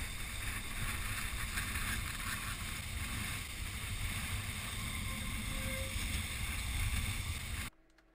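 Waves washing over shoreline rocks, with wind buffeting the microphone in a steady low rumble. It cuts off abruptly near the end.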